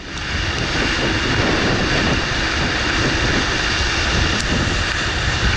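Steady rushing roar of a volcano board sliding fast down loose volcanic gravel, with wind buffeting the microphone, fading in at the start.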